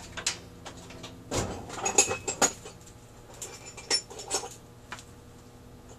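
Irregular light metallic taps and clinks, about eight of them, loudest about two seconds in: a small metal tool tapping the small metal T into its slot in a Rochester 4GC carburetor's cast body to seat it.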